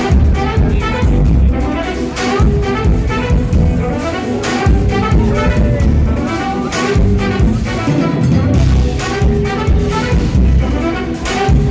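Live jazz fusion band playing loud: a trumpet carries the line over drum kit and a heavy bass end. The sound is rough, recorded right next to the stage.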